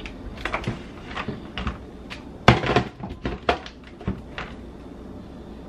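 Plastic blender jar and lid being handled and pressed into place: a series of clicks and knocks, the loudest about two and a half seconds in. The motor does not run.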